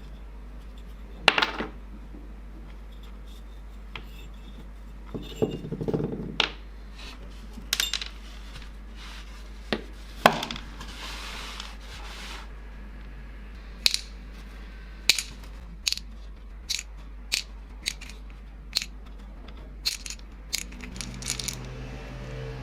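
Scattered sharp metallic clicks and knocks, like small metal parts of an old hand drill being handled and set down, with a brief scraping about ten seconds in.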